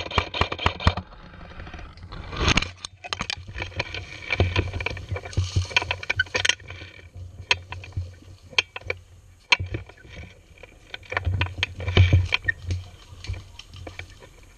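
Footsteps crunching and snapping through dry leaf litter and brush, with irregular sharp cracks and clicks and low knocks of handling on a gun-mounted camera. A fast run of sharp clicks comes in the first second.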